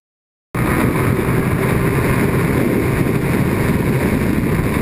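Onboard sound of a 49cc scooter riding at a steady speed: small engine running under heavy wind rush on the microphone, cutting in suddenly about half a second in.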